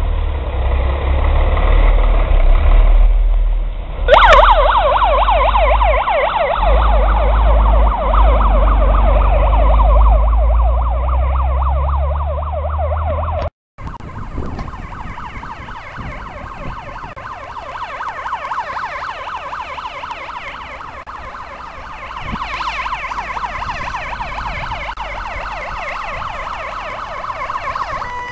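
Heavy fire engine's siren sounding in a fast, repeated rise-and-fall, loud from about four seconds in over a heavy low rumble. After a cut about halfway through, the siren sounds again, farther off and quieter.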